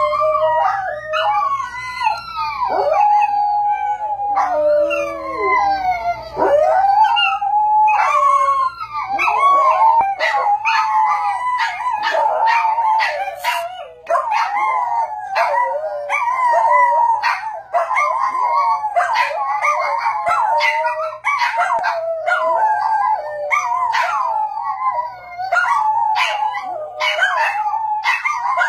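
Small dogs howling: long, wavering howls that slide up and down in pitch, often several voices overlapping.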